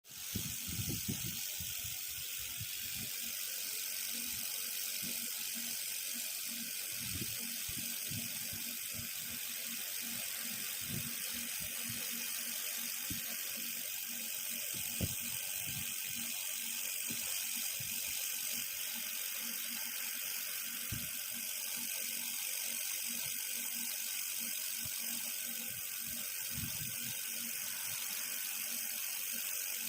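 Handheld fibre laser welding machine at work: a steady hiss throughout, with scattered short low knocks and clicks.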